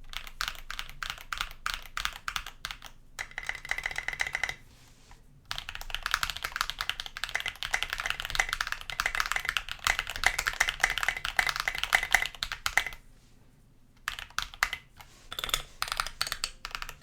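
Mechanical keyboard being typed on: a Tofu 65% aluminium-case board with lubed Holy Panda tactile switches on a brass plate and SA-profile keycaps. It gives a continuous run of keystroke clacks, broken by two short pauses, about five seconds in and about thirteen seconds in.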